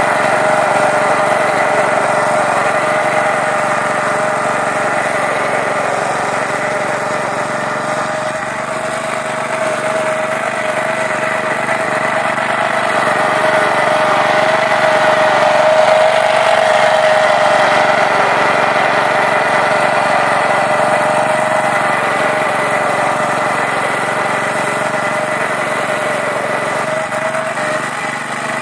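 Petrol engine of a Laplosh vertical-tine motor cultivator, a Champion 160 VK, running steadily under load while its tines churn damp soil. The engine note dips slightly about eight seconds in and swells a little past the middle.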